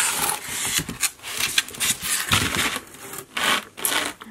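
Cardboard and paper packaging rustling and scraping as a packed box is pulled out of a cardboard carton and opened, with irregular rubs and light bumps.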